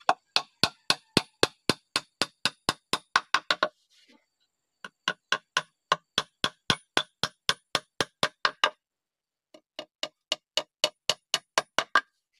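A hammer driving nails into a wooden board, about four quick blows a second. The blows come in three runs, with short pauses about four seconds in and about nine seconds in.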